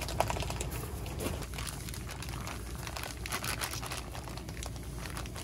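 Plastic bag crinkling in dense crackles while sliced rice cakes are shaken out of it into a pot of dumpling soup, over a steady low hum.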